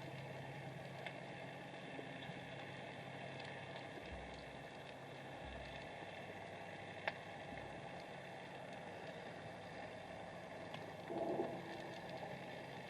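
Underwater ambience picked up by a submerged camera: a steady low hum under a faint hiss with scattered small clicks. One sharp click comes about seven seconds in, and a short, louder muffled burst near the end.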